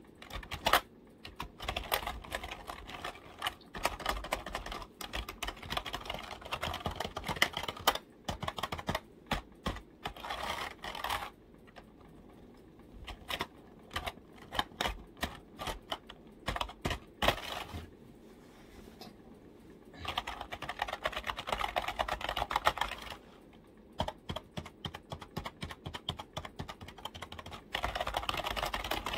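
Fingers tapping on a computer keyboard: fast runs of key clicks broken by a few short pauses.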